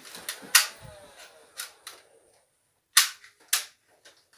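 Nerf blaster shots, sharp plastic snaps: a loud one about half a second in, a softer one a second later, then two more close together around three seconds in.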